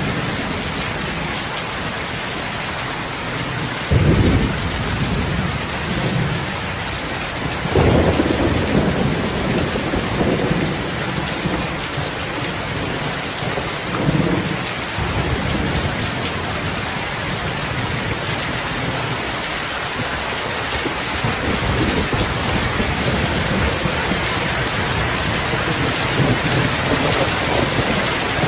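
Heavy rain falling steadily, with short low rumbles of thunder about four and eight seconds in and a weaker one near fourteen seconds.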